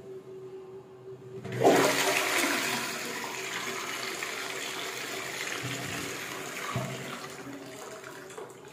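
Kohler rimless toilet flushing from a concealed cistern. A sudden rush of water starts about a second and a half in and slowly eases off as the swirl in the bowl dies down.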